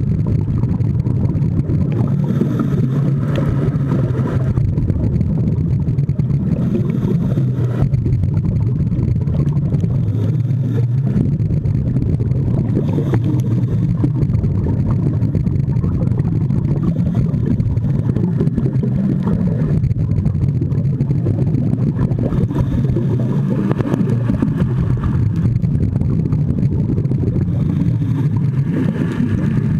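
Steady low underwater rumble heard through an underwater camera, with gurgling bursts of scuba regulator exhaust bubbles every few seconds as the diver breathes out.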